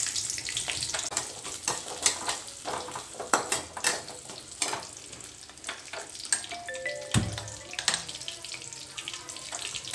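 Shallots frying in hot oil in a metal kadai: a steady sizzle with many small clicks and scrapes as a metal spatula stirs them against the pan. They are being sautéed after the tempering of mustard seeds, curry leaves and fenugreek.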